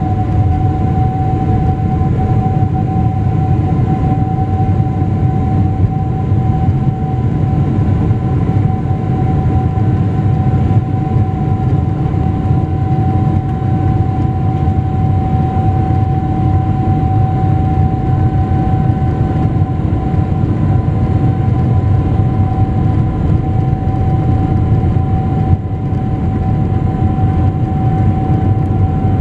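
Boeing 777-200LR's General Electric GE90 turbofan heard from inside the cabin beside the wing, running steadily as the aircraft rolls on the runway: a deep rumble under a steady, unchanging whine.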